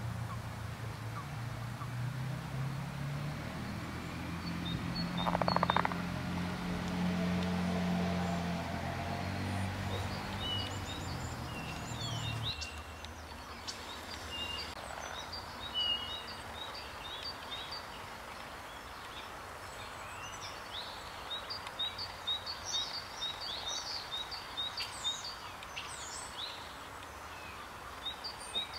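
Birds singing outdoors, repeating short high chirps, denser in the last part. A low droning hum runs under the first dozen seconds and cuts off abruptly.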